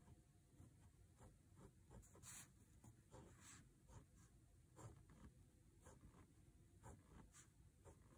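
Faint scratching of a fine-tip pen drawing on a paper tile: a string of short, irregular strokes, about one or two a second.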